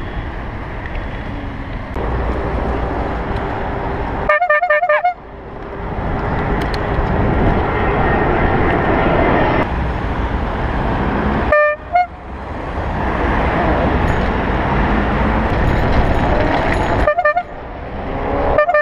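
A bicycle horn with a car-horn-like tone honking four times: a longer honk about four seconds in, then short honks around twelve seconds, about seventeen seconds and at the very end. Wind rush and traffic noise from riding run underneath.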